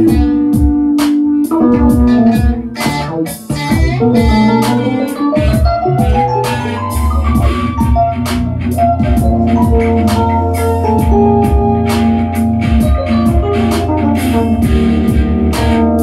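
Live jam of electronic music: a Roland TR-8S drum machine beat under synthesizers, keyboard and guitar. A rising pitch glide comes about a third of the way in.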